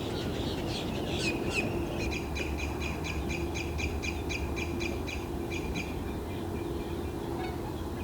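Wild birds calling in a wetland. From about two seconds in until nearly six seconds, one bird gives a fast, even series of short sharp notes, roughly four a second, over a low steady hum.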